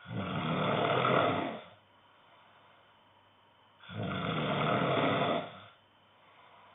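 A man snoring in his sleep: two long snores, each lasting nearly two seconds, about four seconds apart.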